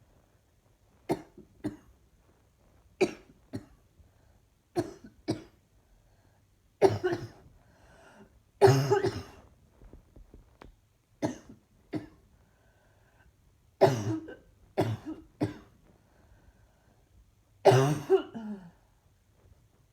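A person coughing repeatedly in short bouts of one to three coughs a few seconds apart, with a longer, louder fit of coughing about nine seconds in and another near the end.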